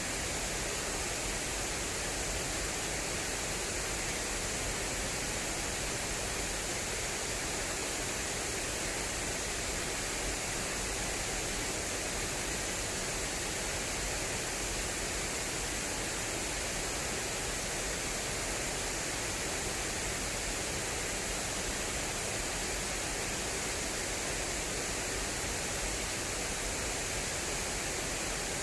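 Fast-flowing water rushing through an irrigation channel: a steady, unbroken rush with a bright hiss.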